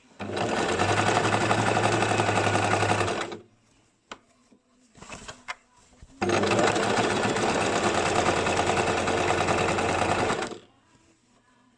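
Basic domestic sewing machine stitching in two runs of about three and four seconds, with a short pause between them in which a few clicks are heard.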